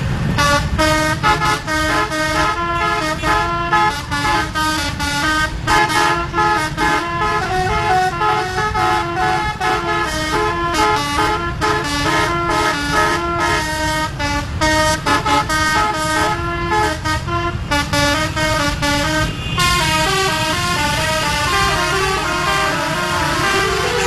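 Bus telolet horn, a set of multi-tone trumpet horns, playing tune after tune, the notes switching quickly from one pitch to another over the low rumble of the road.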